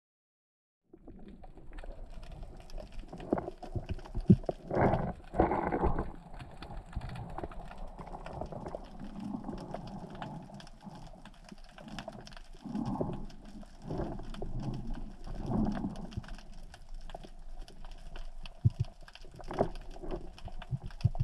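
Underwater sound picked up by a camera in its housing during a breath-hold spearfishing dive: a muffled, steady water noise with many small clicks and knocks and several louder swells.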